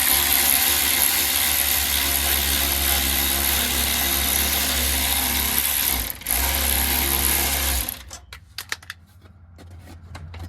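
A handheld power tool runs steadily for about six seconds, stops briefly, then runs about two seconds more, tightening a loose fastener on the e-brake linkage. A few light clicks follow once it stops.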